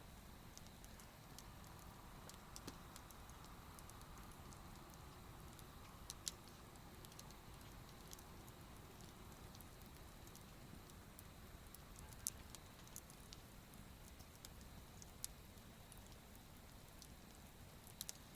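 Wood campfire crackling faintly, with scattered sharp pops over a low steady hiss.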